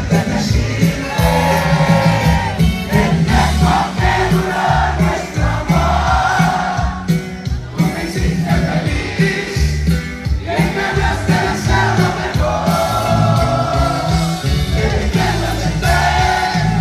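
Live grupero band music: accordion, electric bass and drums with sung vocals, the crowd singing along.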